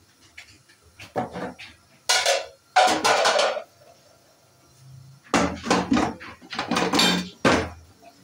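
A spoon scraping food scraps off plates, with the plates clattering against each other, in several bursts with short pauses between them.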